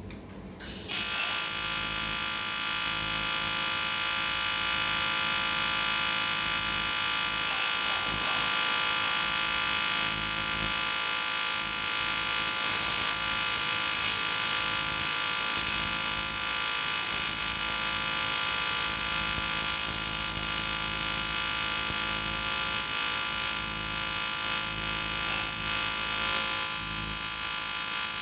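AC TIG welding arc on an aluminium motorcycle cylinder block: a steady buzz that strikes up suddenly about a second in and holds without a break.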